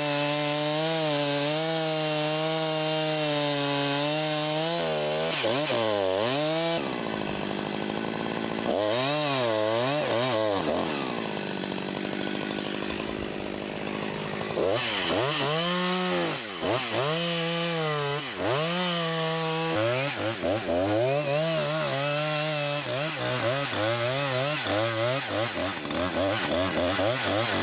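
Chainsaw running, its engine note steady for the first few seconds, then repeatedly revving up and dropping back, with quieter stretches in between.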